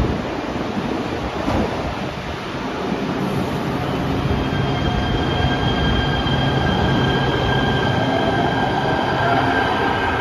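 LA Metro K Line Kinkisharyo P3010 light rail train pulling out of an underground station: a steady rumble of the cars with an electric motor whine that comes in about four seconds in and rises in pitch as the train gathers speed.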